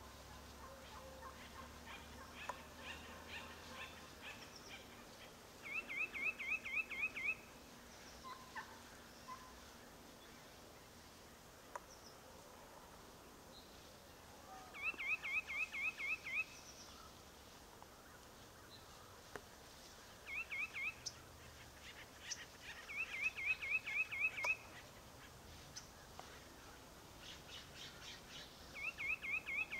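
Wild turkeys calling: five bursts of quick, rattling notes, each up to about a second and a half long, with softer scattered calls between.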